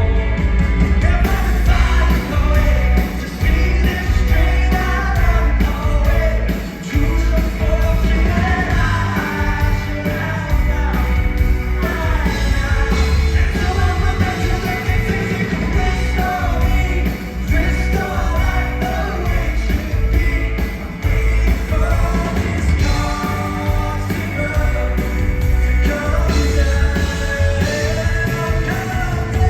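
Live rock song performed by a male lead singer with a full band, with heavy bass and steady drums under the vocal line.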